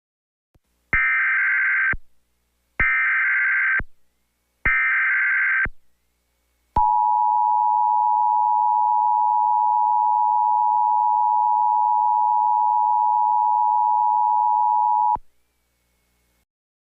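Emergency Alert System tornado warning tones: three short bursts of screechy SAME digital header data, each about a second long, then the steady two-tone 853/960 Hz attention signal held for about eight seconds before it cuts off.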